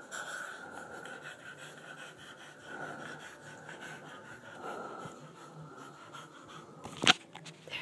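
A French bulldog panting, with a sharp knock about seven seconds in.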